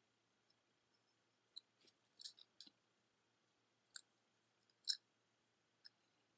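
Faint, sparse clinks and clicks of metal jewelry pieces being handled, about six small taps spread across a few seconds.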